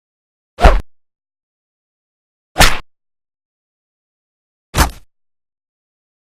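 Three bullet-into-flesh impact sound effects, each a single sudden hit lasting a fraction of a second, spaced about two seconds apart with dead silence between.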